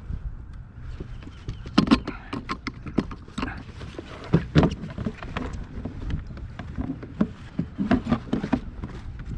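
Irregular knocks and clunks of fishing rods and gear being handled against a hollow plastic kayak hull. The loudest clatters come about two seconds in, around four and a half seconds and around eight seconds, over a low steady rumble.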